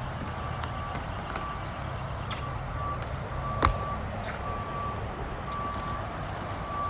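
A vehicle's backup alarm beeping steadily, about one and a half beeps a second, over the low rumble of an engine. A sharp knock stands out about three and a half seconds in, with a few fainter clicks.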